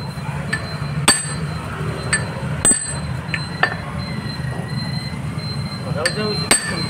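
Hammer blows on the metal pipe and fittings of a submersible pump motor: a series of sharp metallic clanks with a short ringing after each, irregularly spaced, knocking the pipe loose to open the motor.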